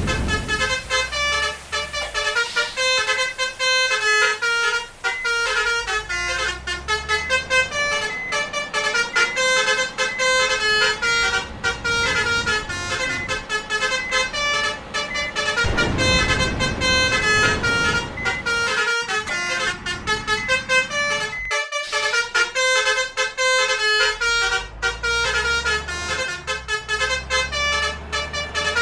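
Basuri multi-tone musical bus horns on 'telolet' buses, playing quick melodies of short notes that change pitch without a break. There is a brief louder rush of noise about sixteen seconds in.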